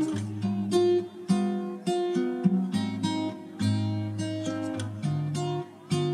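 Background music: a plucked acoustic guitar tune, note after note in a steady rhythm.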